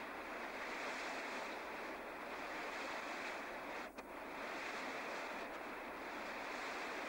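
Fast floodwater torrent rushing steadily through a street, with one brief dip in the sound about four seconds in.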